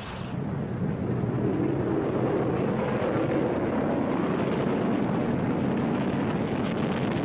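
An F-15's twin jet engines running as the jet moves along the runway: a steady low rumble.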